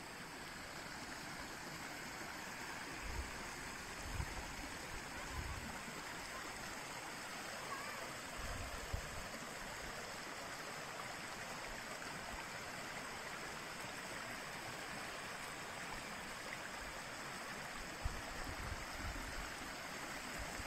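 Shallow mountain stream running over stones, a steady rushing of water. There are a few brief low thumps, at about three to five seconds in, around nine seconds and again near the end.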